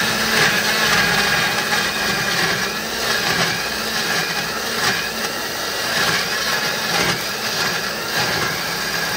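Countertop electric blender running steadily, its motor at a constant pitch, puréeing red chillies, shallots, garlic and ginger with water into a spice paste.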